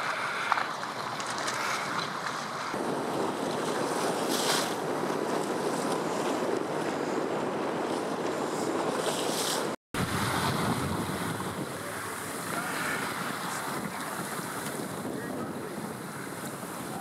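Wind rushing over the microphone on open water, with waves splashing, as a steady noise. The sound cuts out completely for a moment a little past halfway.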